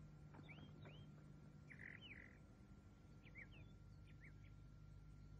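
Faint bird chirping: short, quick chirps in small clusters over a low steady hum.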